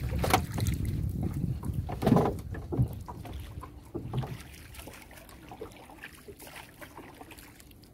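Gill net being hauled by hand into a small boat: handling noise and a few knocks against the boat, dying away over the last few seconds.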